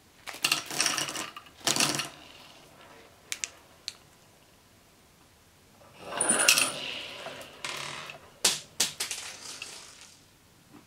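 Small hard candy balls spilling out of a plastic bag and clattering and bouncing on a tabletop, in two rattling bursts with a few single clicks between and after.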